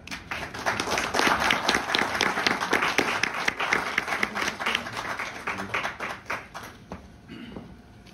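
Audience applauding: dense clapping that starts at once, then thins to scattered claps and dies away about seven seconds in.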